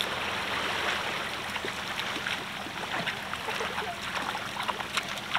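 Shallow seawater lapping and trickling among beach stones, with many small irregular ticks and light splashes.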